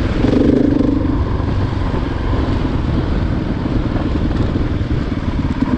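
Single-cylinder four-stroke dirt bike engine, a KTM 500 EXC-F, running under way on an off-road trail. The engine note swells just after the start and again near the end.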